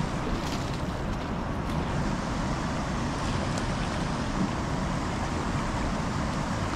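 Steady outdoor rushing noise with a low rumble and no distinct events.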